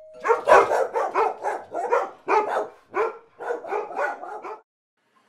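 Shiba Inu barking in a quick run of short, rapid barks that stop about four and a half seconds in.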